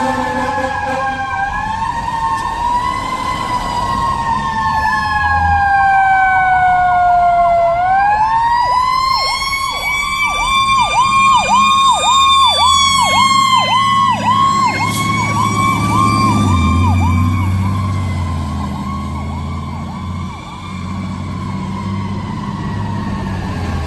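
Fire engine's electronic siren on a slow wail, then switching about eight seconds in to a fast yelp of roughly two sweeps a second, and easing back to a wail near the end. A low rumble from the truck runs underneath.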